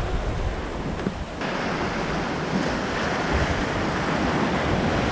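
Rough sea rushing and breaking, with strong wind gusting across the microphone in a low rumble. A little over a second in, the sound turns brighter, into a steady hiss of rushing white water.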